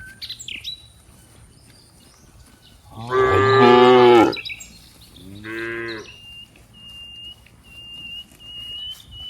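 Cows mooing: one loud, long moo about three seconds in, then a shorter moo about two seconds later.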